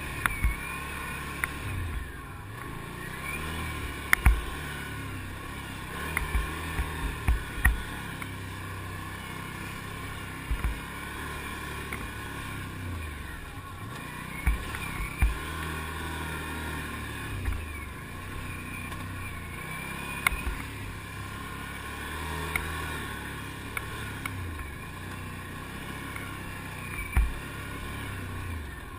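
ATV engine running as the quad rides a rough trail, its pitch rising and falling with the throttle. Sharp knocks and clatters come through every few seconds, loudest about four seconds in and near the end.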